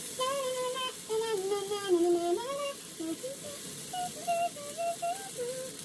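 A voice humming a wordless tune in held, stepped notes that rise and fall, with short breaks between phrases.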